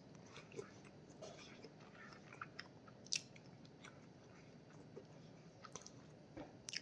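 Faint close-up chewing and small wet mouth clicks of a person eating a mouthful of curry, with one sharper click about three seconds in.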